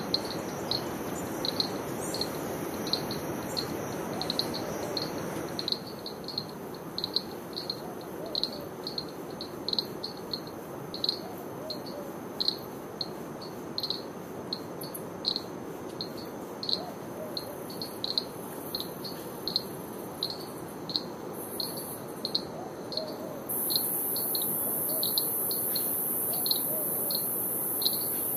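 Forest insects calling: a short high chirp repeated about twice a second over a steady high-pitched drone. A low rushing sound under it stops abruptly about six seconds in, and a louder, very high hiss starts abruptly near the end.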